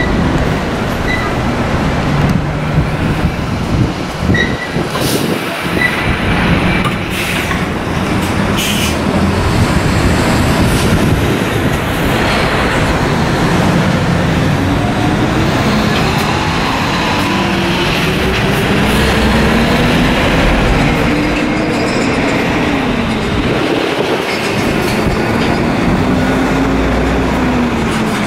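Heavy diesel engines of container-handling machines and a tractor-trailer hauling a shipping container, a continuous loud rumble. A few metal clanks come between about two and nine seconds in, and later the truck's engine pitch rises and falls as it pulls through the yard.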